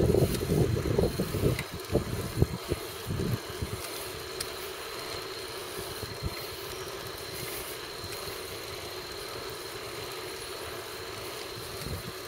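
Wind buffeting the microphone of a camera on a moving bicycle, in loud irregular gusts for the first three seconds or so, then a steady, even riding noise.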